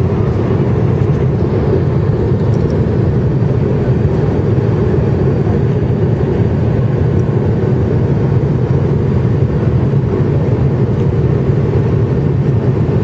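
Jet airliner cabin noise on approach: a steady, low-pitched drone of the engines and airflow heard from inside the cabin.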